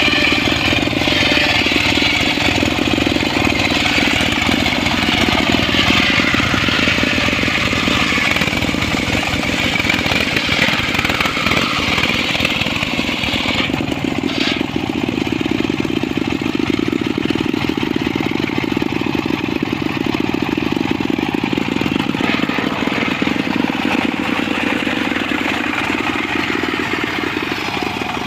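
Engine-driven circular saw running steadily while cutting mahogany wood. A high, harsh cutting noise sits over the motor's steady run and is strongest in the first half, easing off about halfway through.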